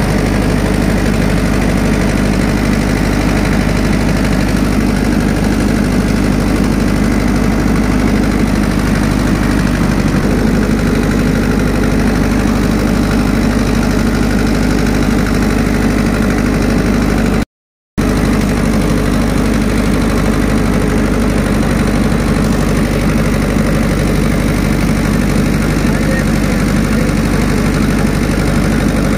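Four-cylinder diesel engine running steadily at idle with its valve cover off and the rocker gear exposed. The sound breaks off for about half a second a little past the middle.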